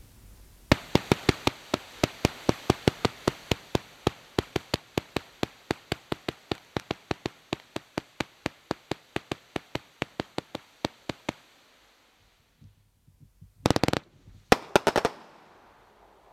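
A 500-gram fireworks cake firing a fast, even string of shots, about five pops a second, for roughly ten seconds before stopping. After a short pause, two brief clusters of rapid loud cracks come near the end.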